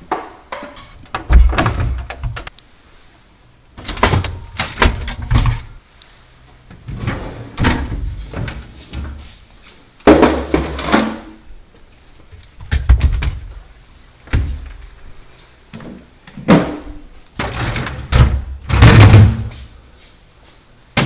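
Shelves and drawers of a Sub-Zero 632 refrigerator being pushed up, pulled out and set down, in a series of clunks, knocks and sliding clatters every couple of seconds.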